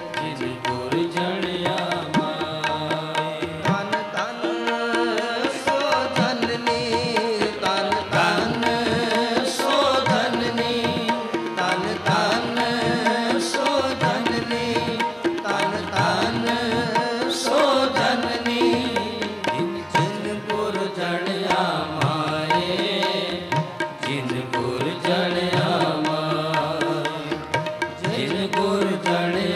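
Sikh kirtan: several harmoniums play a sustained melody while a tabla keeps a steady beat and the group of ragis sings gurbani together.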